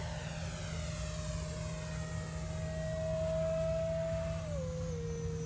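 Whine of a Freewing BAE Hawk's 70mm electric ducted fan, driven by a 2200kv brushless motor, as the RC jet climbs out after takeoff. The steady whine creeps slightly higher in pitch, then drops in a step a little over four seconds in, over a low rumble.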